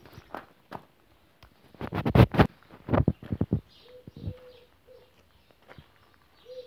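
Footsteps crunching on loose pebble gravel, loudest about two to three and a half seconds in. From about four seconds in, a short soft low-pitched call repeats a few times.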